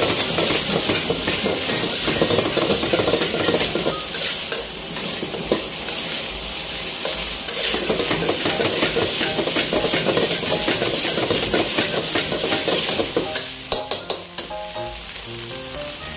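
Fried rice sizzling in a hot wok as a metal spatula stirs and tosses it, scraping against the wok in quick repeated strokes.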